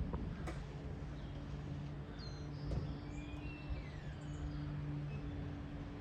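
A few faint bird chirps, mostly in the middle, over a steady low hum.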